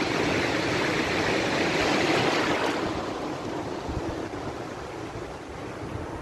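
Sea surf breaking and rushing in around the legs of someone standing knee-deep in the water: a steady wash of noise that swells to its loudest about two seconds in and then eases off.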